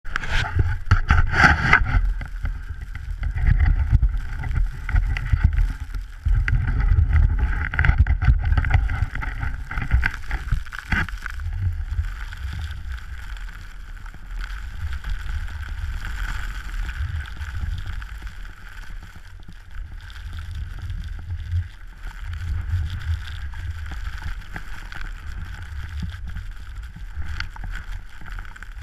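Wind buffeting an action camera's microphone in blowing snow, a gusty low rumble that is loudest and most uneven for about the first ten seconds, then settles into a steadier, quieter rush.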